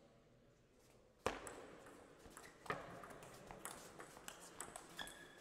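Table tennis rally: the celluloid-type ball struck by paddles and bouncing on the table, making a sharp first hit about a second in, then a quick, irregular run of clicks. A brief high squeak sounds near the end.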